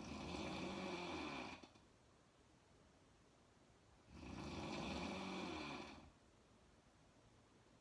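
A woman snoring: two snores, each about two seconds long, some four seconds apart.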